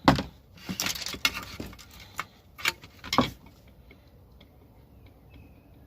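Clicks and knocks of parts being handled and pried while a small item is taken apart for scrap: several sharp knocks in the first three seconds or so, then only faint ticks.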